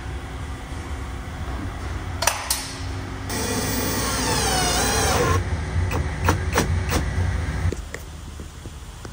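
Workshop sounds of cabinet and drawer-slide fitting: several sharp knocks and clicks over a steady low hum. A wavering whine runs for about two seconds in the middle.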